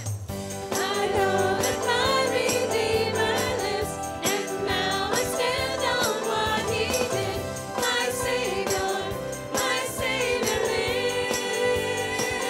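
A church congregation singing a worship song together, over instrumental accompaniment that holds steady chords and a bass line beneath the voices.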